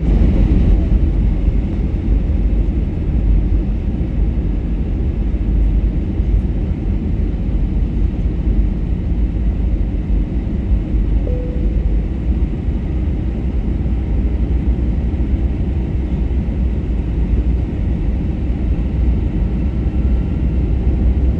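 Steady in-cabin noise of an Airbus A321-231 in flight: a low, even rumble of airflow and its IAE V2500 engines, with no change in level, as heard by a passenger during the descent to landing.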